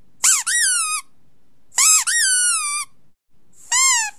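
Squeaky dog toy squeezed repeatedly: two double squeaks, each part rising and then falling in pitch, then a shorter single squeak near the end.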